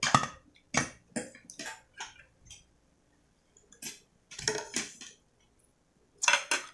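Spoons and forks clinking and scraping on plates and a glass dish during a meal, in scattered short strokes with quiet gaps between.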